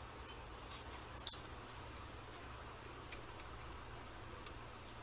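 Faint, scattered light metallic clicks and taps as a center drill is handled and fitted into the drill chuck, over a low steady hum.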